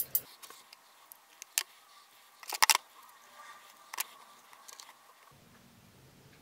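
Small hard-plastic handling clicks and taps: a plastic deli cup and tub being handled, with metal tweezers working inside. A click near the start, a sharper cluster about two and a half seconds in, and a few lighter taps after.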